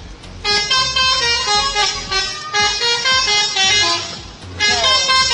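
Indonesian bus 'telolet' horn, a multi-tone musical air horn, playing a melody of loud stepped tones. It starts about half a second in, breaks off briefly about four seconds in, then sounds again.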